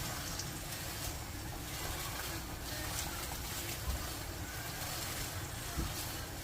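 Zucchini frying in a pan: a steady sizzling hiss over a low rumble, with two soft knocks, about four and six seconds in.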